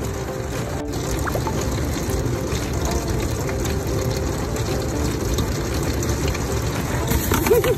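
Steady rushing noise of stormy wind. A short wavering pitched sound comes near the end.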